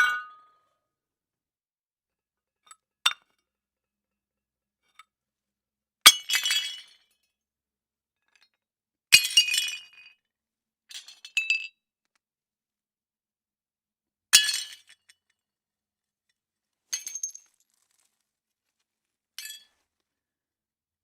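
Plates smashing one at a time: about six separate crashes of breaking crockery a few seconds apart, each followed by a short clatter of clinking shards, the last ones fainter.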